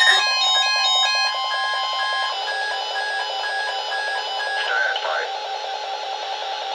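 Electronic alert tone beeping in quick repeated pulses, a few beeps a second, from equipment sounding an Emergency Alert System weekly test.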